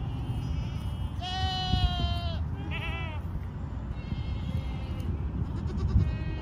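Goats in a herd bleating: one long, steady bleat about a second in, a shorter wavering bleat right after it, then fainter bleats from other goats.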